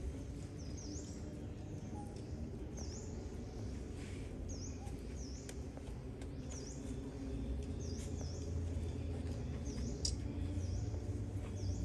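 Short, high chirps repeating roughly once a second, like a small bird calling, over a steady low hum that grows a little louder about seven seconds in.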